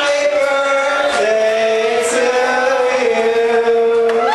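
A voice singing through a microphone and PA, holding long notes that step to a new pitch a few times.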